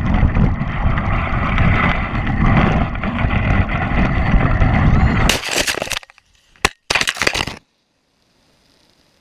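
Rough wind rumble on the microphone and dog-sled noise over snow during a fast ride. About five and a half seconds in there is a sudden loud crash, then a couple of short knocks, then near silence.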